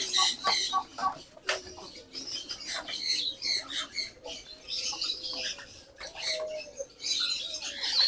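Farm birds being let out of their pens: wings flapping, scattered sharp taps, and high chirping that comes and goes.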